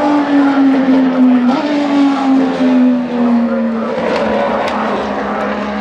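A Hypercar-class race car's engine, its pitch falling steadily as it slows. The pitch steps back up once, about one and a half seconds in, as on a downshift.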